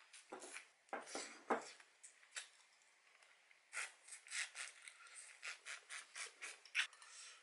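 Close-up eating sounds of soy-sauce-marinated rock crab with rice: utensils scraping and knocking in the rice bowl in the first couple of seconds, then steady chewing, about three bites a second, through the second half.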